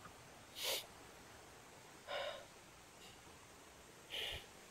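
A man breathing hard while hiking, three audible breaths about a second and a half apart: he is winded from the climb.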